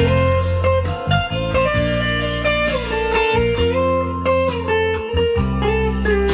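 Electric guitar playing a melodic solo line of held, gliding notes over a sustained backing of bass and chords.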